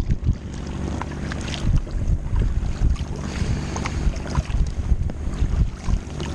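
Double-bladed kayak paddle strokes: the blades dipping and pulling through water with splashes and drips at irregular moments, over a steady rumble of wind on the microphone.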